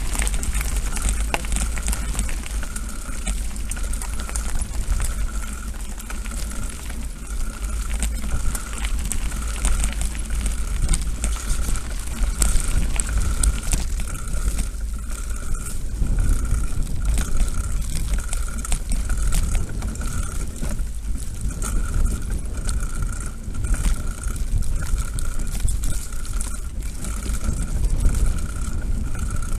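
Mountain bike ridden over a rough dirt track, heard from a camera mounted on the rider: a steady low rumble of wind and ride vibration on the microphone, with frequent rattling clicks from the bumpy ground. Through it runs a faint squeak repeating about one and a half times a second.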